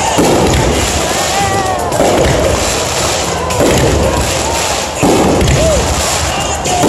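Aerial fireworks going off: continuous crackling and booming, with four sudden loud bursts about a second and a half apart.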